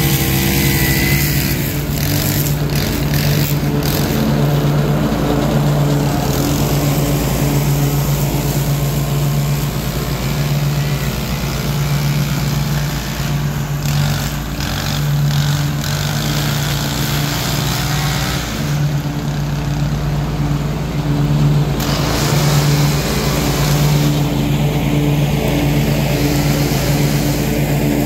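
Ariens Ikon Envy zero-turn mower engine running steadily at mowing speed, with a low drone that wavers slightly.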